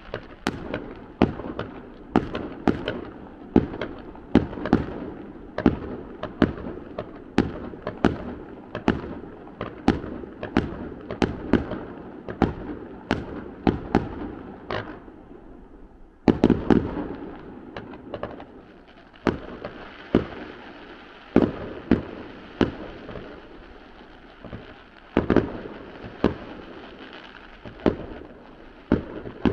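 Fireworks display going off at a distance: a steady run of sharp bangs, about two a second, with echoing between them. After a short lull about fifteen seconds in, a loud cluster of bangs goes off, followed by more spaced-out bangs.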